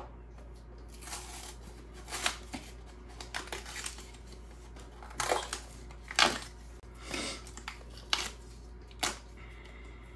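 Fingers picking and tearing at the perforated pull-out panel of a cardboard baking soda box: a string of short ripping and scraping noises with pauses between.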